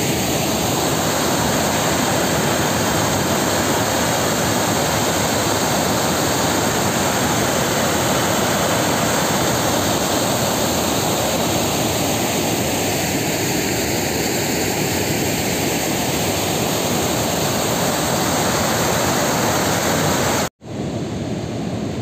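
Water overflowing a dam's spillway: a loud, steady rush of falling water. It breaks off for an instant near the end and goes on quieter.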